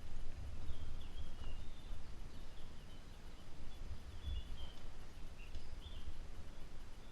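Birds chirping now and then in short high calls over a steady low rumble on the microphone.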